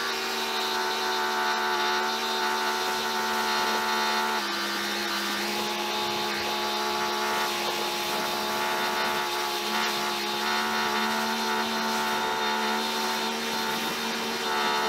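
Teande 2300 PSI electric pressure washer running steadily with its motor hum, while the wand's spray hisses onto the car; the hum drops slightly in pitch about four seconds in.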